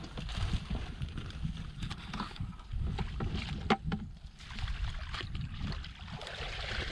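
Wind buffeting the microphone, with rustling in wet grass and a few sharp knocks as a wicker fishing basket is handled and set down in a shallow muddy pool.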